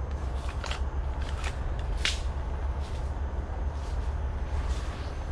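Footsteps and rustling of gear and undergrowth as a person moves, with a few short, sharp scrapes or clicks, the clearest about two seconds in, over a steady low rumble.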